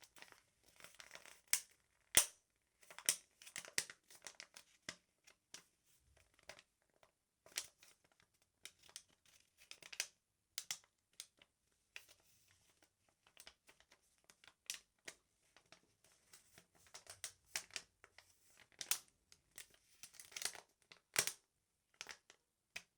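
Tracing paper crumpled and crinkled in the hands, a continuous run of irregular sharp crackles: a foley imitation of a crackling fire.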